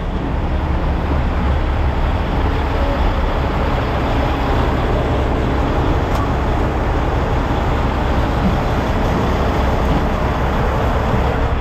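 2007 Kenworth dump truck's diesel engine running steadily with road noise, a low, even rumble.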